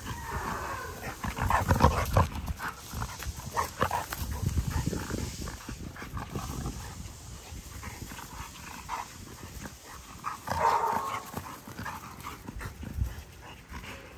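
American bully dogs and puppies playing close by: irregular scuffling and padding about. There are two short dog cries, one in the first second and one about ten and a half seconds in.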